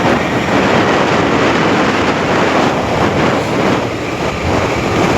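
Loud, steady road traffic noise, an even rush of vehicles with no clear engine note standing out.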